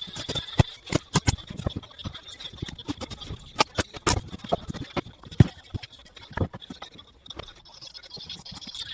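Irregular knocks, clacks and scrapes of wooden boards being handled and fitted together during assembly, with a faint steady high whine in the background.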